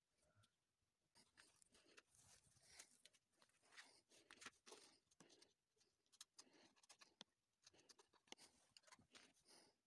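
Faint rustling and small clicks of hands handling glitter foam cutouts and folding a paper circle on a tabletop, irregular throughout.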